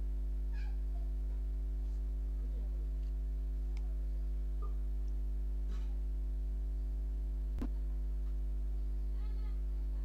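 Steady electrical hum with its overtones. Faint, short wavering calls come through a few times, and there is a sharp click about three-quarters of the way through.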